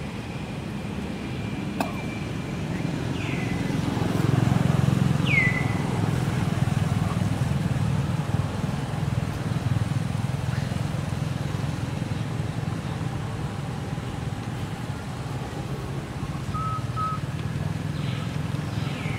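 Low, steady rumble like a passing motor vehicle, swelling about four to five seconds in and then easing. A few short high chirps, each falling in pitch, sound over it.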